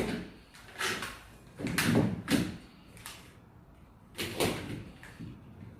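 A few short knocks and clunks from plastic power strips being handled and set down, about a second in, around two seconds in and again near four and a half seconds.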